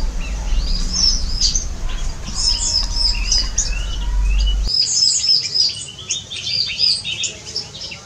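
Several aviary songbirds chirping, a busy run of short, high, repeated notes overlapping one another, over a low rumble that cuts off suddenly just past halfway.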